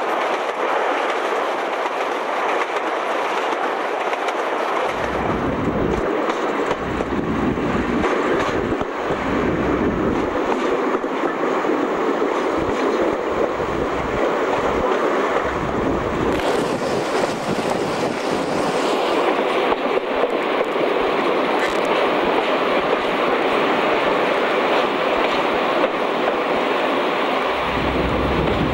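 BR diesel-hydraulic locomotive running along the line, heard from its cab-side window: steady engine and wheel-on-rail noise, with wind buffeting the microphone in uneven low surges from about five seconds in.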